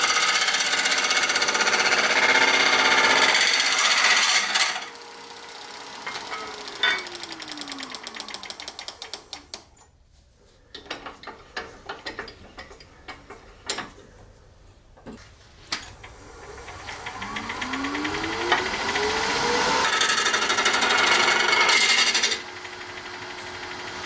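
Wood lathe with a gouge cutting a spinning resin-and-burl hybrid orb, a loud rough scraping. About four seconds in the cut stops and the lathe motor winds down with a falling whine, a few light knocks follow while the stopped piece is handled, then the motor winds back up with a rising whine and the gouge cuts again for a couple of seconds before the lathe runs on steadily without cutting near the end.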